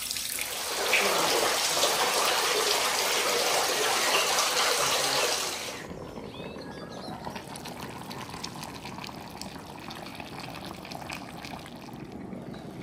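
Water from a stone wall fountain's spout splashing steadily into its stone basins. The splashing cuts off suddenly about six seconds in, leaving a much quieter background.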